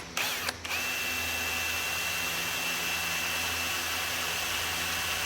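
Power drill boring a 1/16-inch hole through a strip of 16-gauge aluminum: a couple of short trigger bursts, then it runs steadily with a high, even whine.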